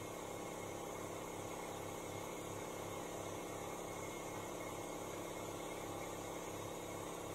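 Compressed-air spraying gear for underbody Stone Guard running: a steady hiss with a hum, and a low throb pulsing about twice a second.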